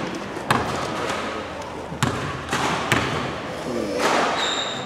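Basketball bouncing on a hardwood gym floor: three sharp thumps, the first about half a second in and the next two about a second apart, over the hall's echoing background noise. A short high squeak near the end.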